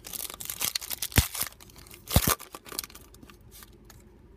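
A foil trading-card pack being torn open, its wrapper crinkling. There are two sharp, loud cracks, about a second and about two seconds in.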